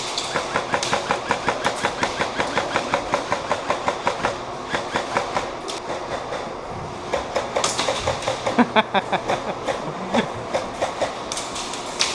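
Airsoft guns firing rapid full-auto bursts, a fast even string of about nine shots a second for the first four seconds, then scattered shots and another rapid string later.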